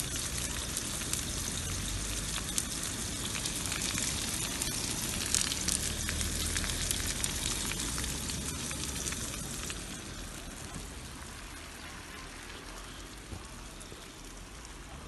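Sucuk, Turkish spicy sausage, frying in oil in a pan: a dense, steady sizzle full of tiny crackling pops, which eases off gradually over the last few seconds.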